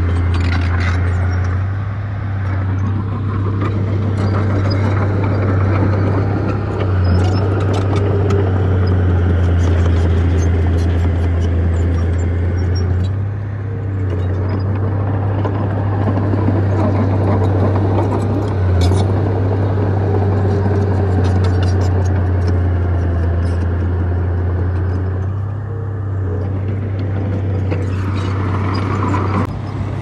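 Heavy diesel engine of earthmoving machinery running steadily with a low drone, its pitch and level shifting slightly every few seconds, with scattered metallic clicks and rattles.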